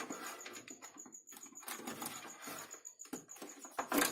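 Hands pulling cables and connectors inside an opened desktop computer case: irregular clicks, taps and rustling of plastic, with a sharper click near the end.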